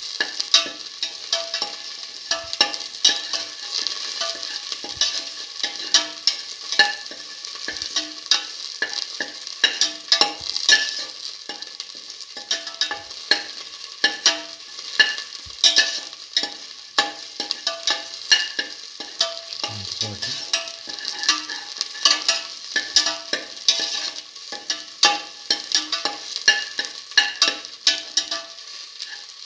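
Shallots and garlic cloves sautéing in oil in a steel pan: a steady sizzle with many small crackles, stirred now and then with a spatula.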